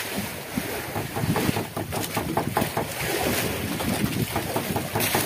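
Wind buffeting the microphone over the steady wash of open sea, with water splashing and lapping against an outrigger fishing boat in irregular small slaps.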